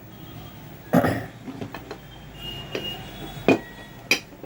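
A few sharp metallic knocks and clicks as the opened ceiling fan's housing and parts are handled. The loudest comes about a second in, and two more come near the end.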